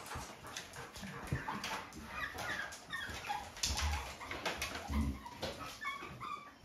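Young puppies shut in a wire crate whimpering and whining in short falling cries, more of them in the second half, with scattered light clicks and a couple of dull bumps: the distress of puppies newly separated from their mother at weaning.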